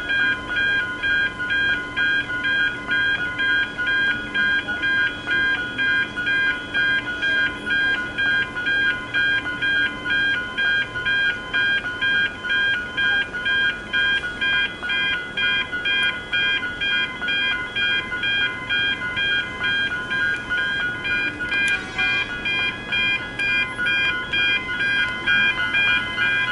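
Level crossing's electronic warning bell ringing in a steady repeated ding at about two strokes a second, sounding while the crossing's lights flash and the booms are down for a train.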